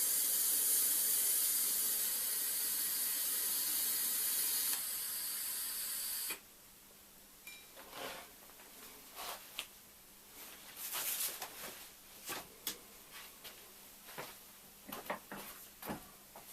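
TIG welding arc on stainless steel fittings, running as a steady hiss that drops slightly about five seconds in and cuts off abruptly about a second later. After that come scattered light clicks and knocks of metal parts being handled.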